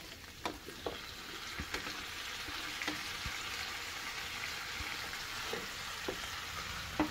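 Diced tomato, onion and jalapeño scraped off a plate into a hot pan of browned pork rib pieces, setting off a steady sizzle that builds up about a second in. A few light scrapes and taps of a silicone spatula come through over it.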